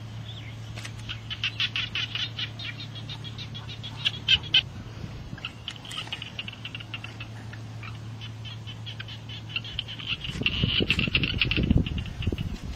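Field ambience: fast trains of high, sharp chirping calls over a low steady hum. Near the end the hum stops and a heavier rumbling and knocking takes over.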